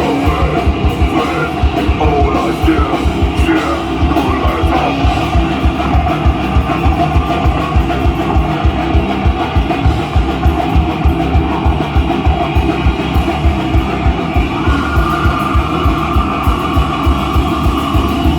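Goregrind band playing live and loud: heavily distorted guitars over fast, steady pounding drums.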